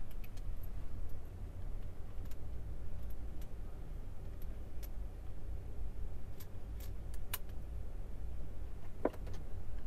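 Scattered light metallic clicks and ticks of an MR-73 revolver being handled, its cylinder and parts knocking and snapping, over a steady low hum. The sharpest click comes about seven seconds in, and a ringing one near the end.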